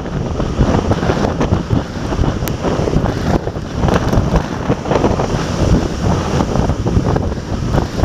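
Strong typhoon wind buffeting the microphone over heavy storm surf breaking against the harbour quay and reef, a dense, gusting rush with no let-up.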